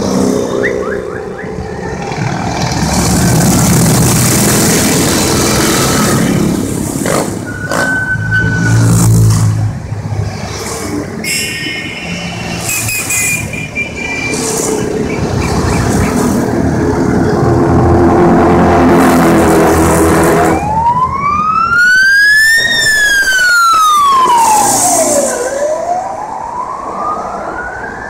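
A column of motorcycles passing close by with engines running and revving. About two-thirds of the way in, a siren starts a slow wail that rises, falls and rises again.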